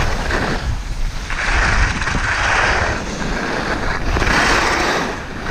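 Skis scraping across packed snow in two long skidding swells, with wind buffeting the microphone as the skier moves downhill.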